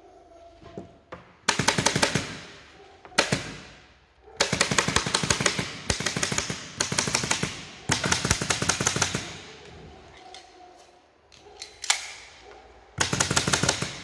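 Pneumatic upholstery staple gun firing staples in rapid runs, about seven quick bursts with short pauses between them and a couple of single shots.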